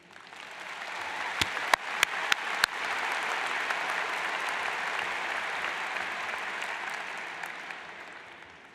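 Large audience applauding. The applause builds over the first few seconds, holds, then fades away near the end, with a few sharp, close claps standing out early on.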